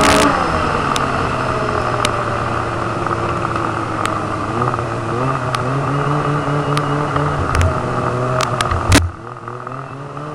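Snowmobile engine running under way with a rushing noise: its pitch falls, then climbs again as the throttle changes, with scattered clicks. About nine seconds in, a sharp knock, after which the rushing noise drops away and the engine runs on more quietly.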